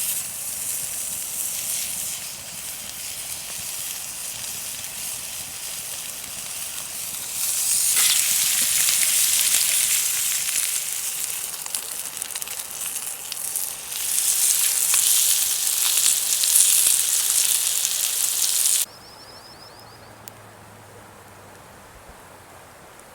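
Lamb chops sizzling on a grill over a wood fire, a loud steady hiss that steps up in level twice. A little under 19 seconds in the sizzle cuts off abruptly, leaving a faint background with a brief high trill.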